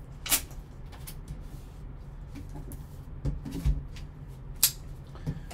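Gloved hands handling a cardboard trading-card box: a few scattered sharp taps and knocks as it is lifted, turned and set down, over a steady low hum.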